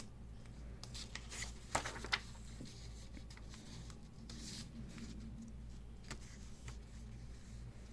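Quiet room with a steady low hum, broken by a few soft rustles and light clicks, mostly in the first couple of seconds, and a brief hiss about halfway through.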